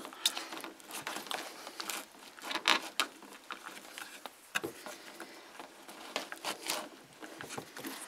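Small screwdriver scraping and clicking against the plastic of a self-contained mobile home light switch while turning its locking lugs: a scattered series of light ticks and scratches.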